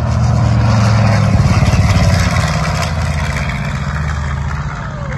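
Jet-powered show truck's jet engines running, a loud, steady rumble with hiss, loudest a second or two in and easing slightly after.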